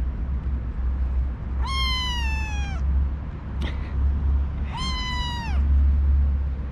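Kitten meowing twice: two long, high meows about three seconds apart, each dropping in pitch at the end, over a steady low rumble.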